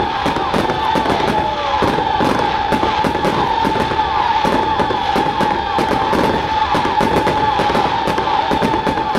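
Fireworks display: a dense, continuous run of rapid bangs and crackles from bursting shells and rising comets, over a steady high-pitched tone.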